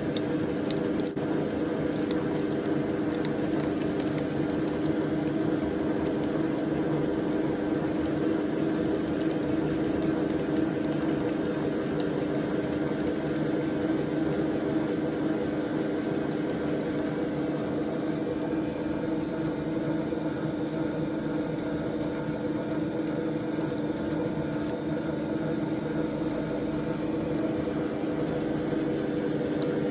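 Milling machine running steadily with a constant multi-tone hum, its cutter taking the final pass along a flute in a screwdriver handle.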